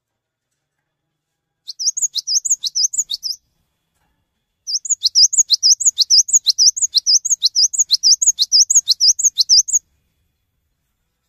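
Cinereous tit (gelatik batu) singing. It gives a short burst of rapidly repeated high notes, then after a brief pause a longer run of the same notes lasting about five seconds.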